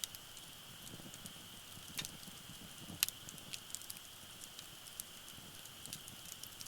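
Wood fire burning in a Uniflame fire grill, crackling with scattered sharp pops, the loudest about three seconds in.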